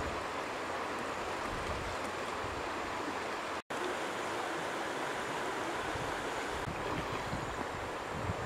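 Steady rush of flowing water in a shallow stream, with a split-second dropout about three and a half seconds in.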